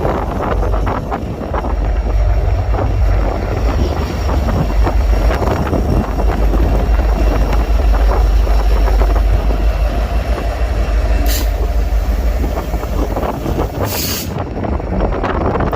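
Freight train rolling past: a steady, heavy rumble with the clatter of wheels on rail. Two short hissing bursts come near the end.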